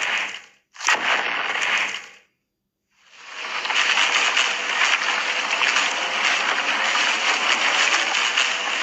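Film sound effects: two short bursts of rushing, crashing noise, a brief gap of silence, then a steady rushing noise like gushing water or heavy rain.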